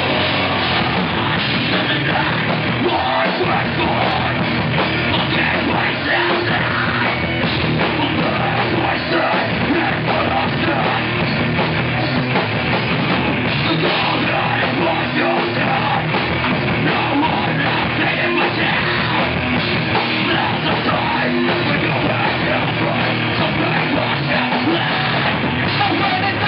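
Live heavy rock band playing at full volume: drum kit, electric guitars and bass, with a vocalist singing and yelling into a microphone.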